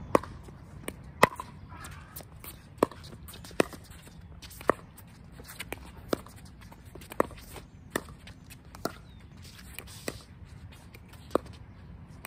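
Pickleball paddles hitting a hard plastic ball in a long doubles rally: a string of sharp pops, roughly one a second.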